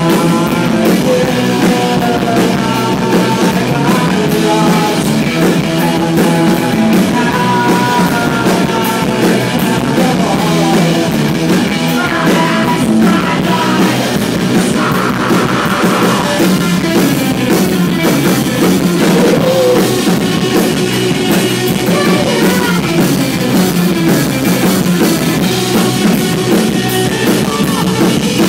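Rock band playing live, with drum kit and guitar, captured in a rough, low-quality audience recording.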